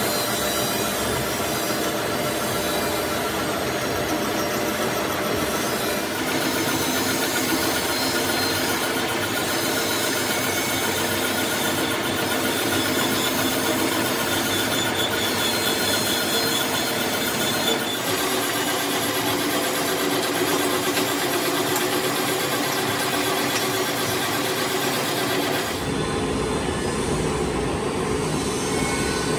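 Metal lathe running while its cutting tool faces a large steel disc: a steady machine hum and gear whine with the grinding hiss of the cut. The pitch and mix change abruptly a few times.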